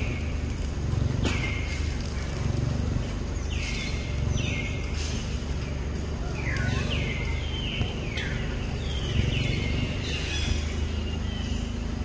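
Forest ambience: a repeated rasping call that sweeps down in pitch, about one a second, from an unseen bird or insect, over a steady low rumble.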